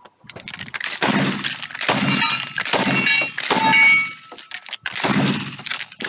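Shotgun fired several times in quick succession at steel knockdown targets, each blast followed by the steel plates clanging and ringing.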